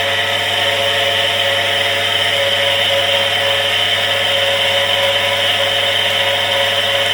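Electric household water pump running with a steady, noisy motor hum.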